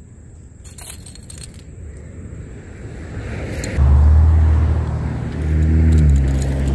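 A motor engine's low, steady hum, coming in loud and suddenly about four seconds in after a rising rush of noise, its pitch stepping near the end. A few light clicks about a second in.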